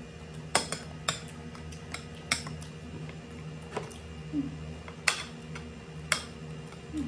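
Spoon and chopsticks clinking and scraping against a ceramic plate while eating, about six sharp clinks spread over several seconds.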